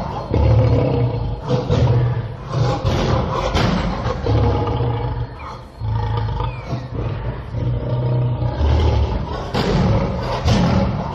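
Lion roaring: a run of deep roars and grunts, about one a second, with a short lull a little past the middle.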